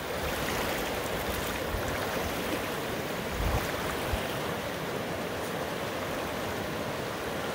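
Fast river water rushing steadily over rapids, with a couple of brief low thumps about three and a half and four seconds in.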